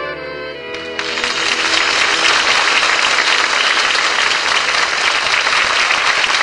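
A studio audience breaks into applause about a second in, as the band's final held chord of a ballad dies away; the applause then carries on steadily.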